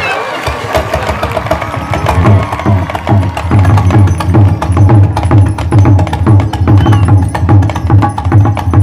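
Balinese gamelan accompanying a Barong dance, played fast with drums and dense metallic strokes, growing louder over the first two seconds.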